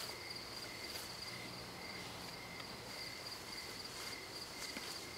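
Crickets chirping steadily at night, a continuous high trill at two pitches.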